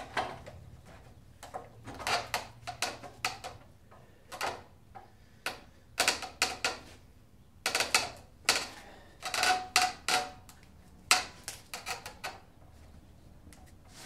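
A run of irregular knocks, clicks and clatters, some in quick clusters, as of hard objects being handled and set down.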